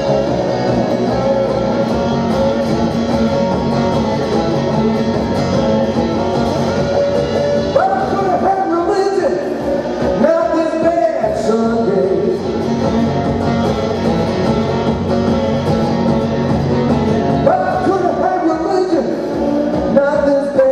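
Blues guitar played live in a solo performance, a steady repeating riff with a few held, bending higher notes rising above it.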